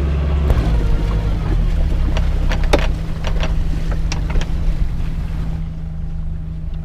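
Sailboat's inboard diesel engine running, its low note changing about half a second in as it is throttled back to stop the boat, with a few sharp knocks and clatter on deck.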